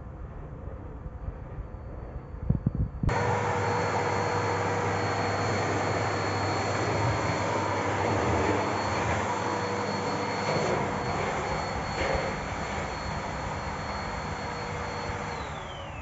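Bosch BGS21X320 bagless canister vacuum cleaner running, a steady motor whine over rushing air. It becomes suddenly louder about three seconds in. Near the end the whine starts falling in pitch as the motor is switched off and spins down.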